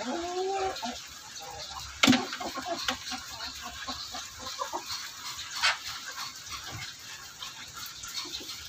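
Chickens clucking around a feeder as feed is thrown to them. There is one drawn-out call at the start, a sharp knock about two seconds in, then a run of short clucks and pecks.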